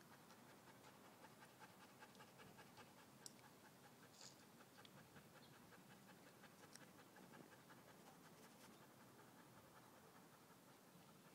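German Shepherd panting faintly in a quick, even rhythm.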